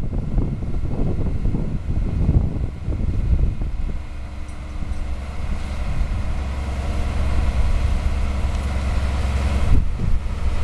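Wind buffeting the microphone, then from about four seconds in a steady low hum from the mobile crane's diesel engine running as it lifts a roof panel.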